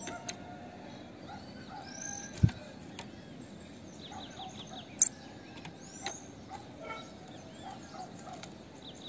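Female bananaquit calling: scattered high, thin chips and short arcing notes, with a quick run of short falling notes just after four seconds. A dull thump about two and a half seconds in and a sharp click about five seconds in are the loudest sounds.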